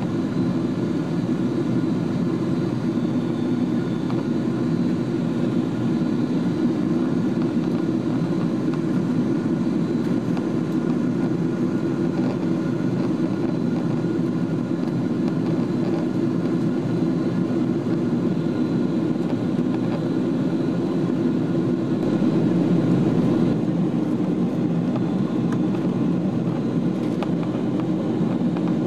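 Steady cabin noise inside a Cathay Pacific Boeing 777-200 in flight: a low rumble of its Rolls-Royce Trent turbofans and the airflow over the fuselage, with faint steady whining tones above it.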